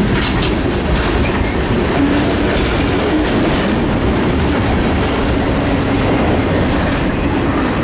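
Freight train boxcars rolling past close by: a steady, loud noise of steel wheels running on the rails.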